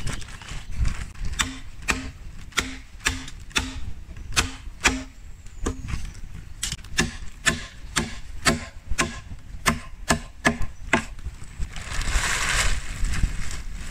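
Machete chopping into a green bamboo pole: sharp knocks about two a second, many followed by a short hollow ring from the bamboo tube. The chopping stops about eleven seconds in, and a brief rustle follows.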